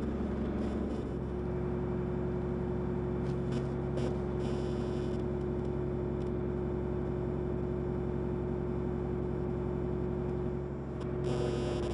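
John Deere tractor's diesel engine running at a steady drone, with an even hum. It dips briefly near the end, then picks back up.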